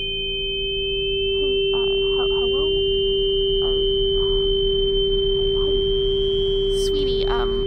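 Electronic sine-tone drone: a steady low tone held under a high tone that slowly rises until it merges with a second steady high tone, with faint warbling chirps in the middle and a brief rush near the end.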